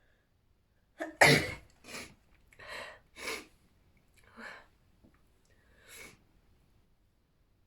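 A woman sneezing: a quick intake and the loudest sneeze about a second in, then a run of softer, breathy sneezes and breaths spaced about a second apart.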